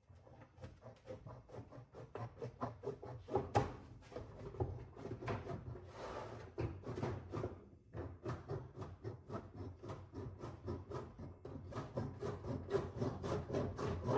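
Sheet metal being cut by hand: a quick run of short cutting strokes, several a second, over a low steady hum.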